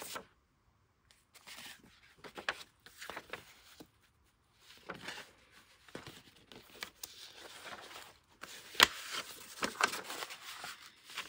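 Loose sheets of paper and card rustling and sliding against each other as they are shuffled and layered by hand, in irregular bursts with a sharper click about nine seconds in.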